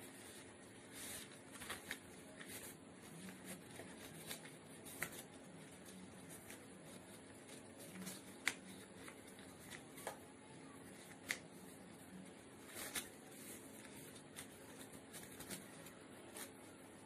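Origami paper being folded and creased by hand: soft, irregular rustling and crinkling, with a few sharper snaps as folds are pressed flat.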